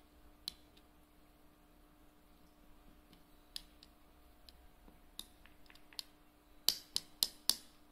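Metal spoon stirring moistened food in a small ceramic dish, giving scattered light clinks against the dish, then four louder clinks in quick succession near the end.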